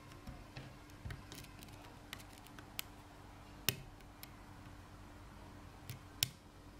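Small, irregular metallic clicks and ticks of a pick and tension wrench working the pin stacks inside a Blossom 5-pin dimple padlock, with two sharper clicks, one about halfway and one near the end.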